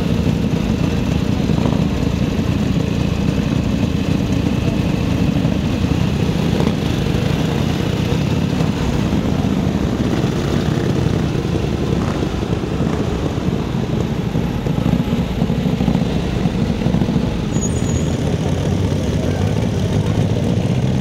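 Several antique motorcycle engines idling and running together, a steady, continuous low engine sound with no pauses.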